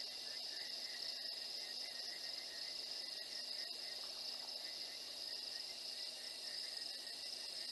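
Steady chorus of night insects, a continuous high-pitched trill that does not change, over a faint even hiss of background noise.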